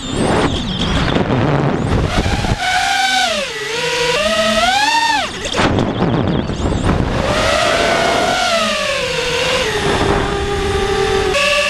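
Brushless motors of a Diatone Roma F5 V2 FPV quadcopter whining in flight, the pitch sweeping up and down with the throttle through flips and dives. Twice the whine drops away and then climbs steeply again, and near the end it holds a steadier, lower note, with a rush of wind underneath.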